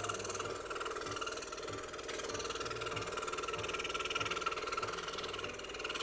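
Scroll saw running steadily, its fine reciprocating blade cutting through a thin wooden jigsaw puzzle board, with short low notes of background music underneath.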